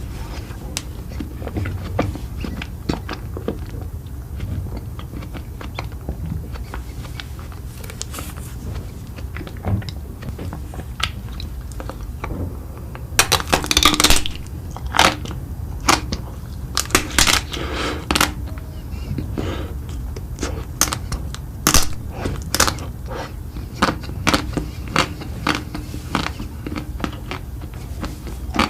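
A person eating close to the microphone: crisp crunching bites and chewing, with a cluster of loud crunches about halfway through and more sharp crunches toward the end, over a steady low hum.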